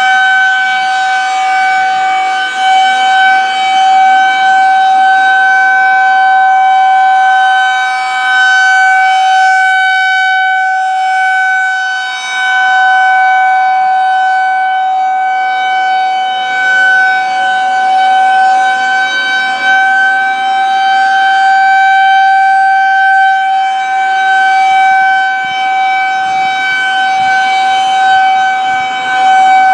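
Federal Signal 2001-130 electromechanical warning siren sounding a steady alert tone at a constant pitch. Its loudness slowly swells and fades as the rotating horn sweeps toward and away, dipping twice.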